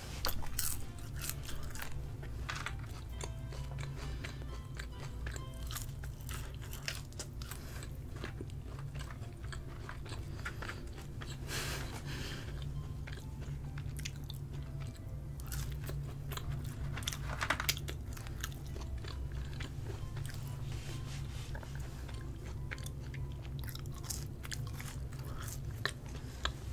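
Close-miked chewing of McDonald's French fries: many small crunches and mouth clicks, a few louder bites among them.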